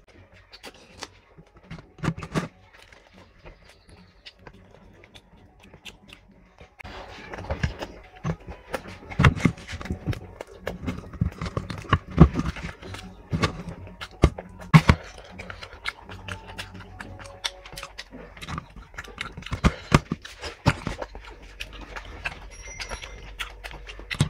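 Close-up eating sounds of a person eating curry by hand: wet chewing and lip smacks, with fingers squishing the food. The smacks are sparse at first and come thick and fast from about seven seconds in.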